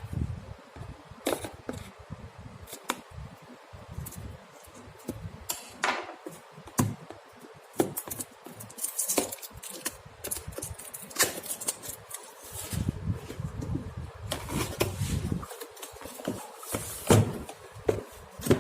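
Cardboard box and packaging being opened and handled: irregular rustling, scraping, clicks and knocks of cardboard and paper.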